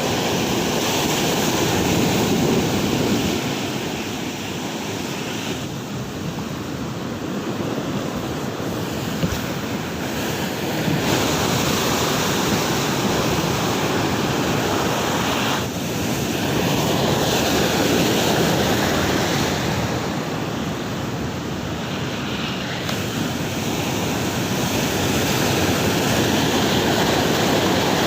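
Heavy surf breaking and washing ashore in rough weather, swelling and easing every few seconds, with wind buffeting the microphone.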